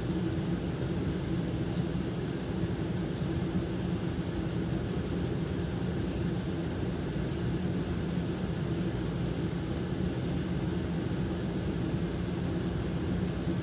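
Steady low rushing background noise with no change in level, and a couple of faint clicks about two and three seconds in.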